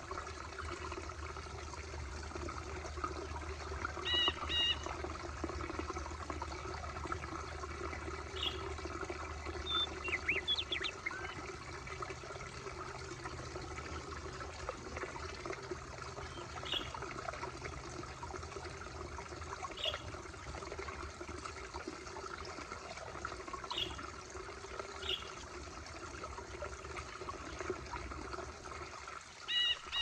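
Small woodland stream trickling steadily over rocks, with short high bird chirps every few seconds.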